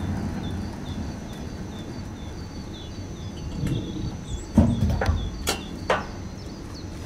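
Hand pallet truck rolling a steel skip into place, its wheels squeaking in a quick, even run of high chirps, then several sharp metallic clunks a little past the middle as the truck is handled. The vacuum unit's diesel engine keeps up a steady low hum underneath.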